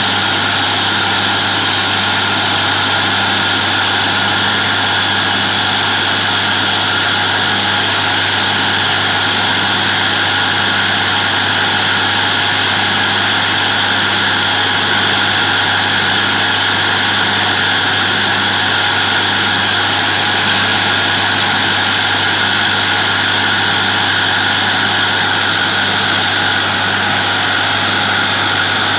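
Truck-mounted borewell drilling rig running steadily, its engine and compressor noise continuous and unchanging, with a faint regular throb a little over once a second.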